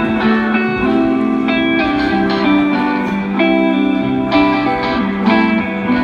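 Live rock band playing over a PA: electric guitars pick a melodic riff of quick changing notes over a steady bass line.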